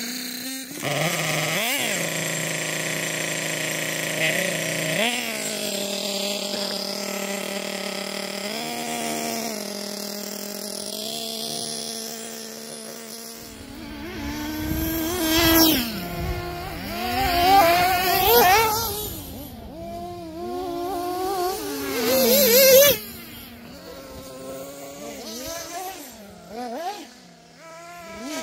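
1/8-scale nitro RC buggy's small two-stroke glow engine running: it holds a fairly steady high idle with a few short throttle blips, then from about halfway revs up and down hard as the buggy is driven, loudest in several sweeping passes, before it fades back as the buggy runs farther off.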